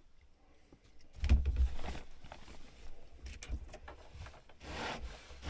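Rubbing and rustling handling sounds with a low thump about a second in and scattered clicks, then a rising hiss near the end.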